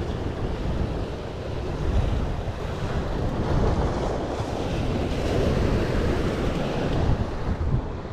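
Ocean surf washing and breaking against rocks below, with wind buffeting the microphone in uneven low gusts.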